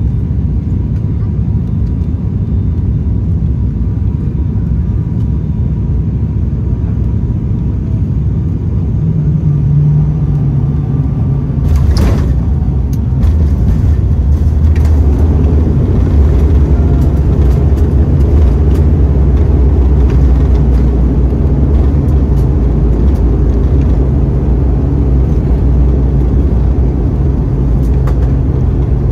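ATR 72-600 twin-turboprop cabin sound on landing: a steady engine and propeller drone on short final, a sharp thump as the main wheels touch down about twelve seconds in, then a louder low rumble as the aircraft rolls out and slows on the runway.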